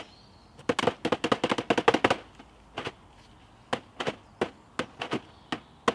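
Hard objects being struck together by hand: a fast run of sharp clacks starting under a second in, then single knocks spaced about half a second apart.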